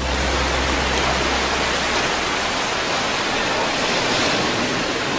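A steady, even rushing noise, like water or wind, with a low hum beneath it that fades out about two seconds in.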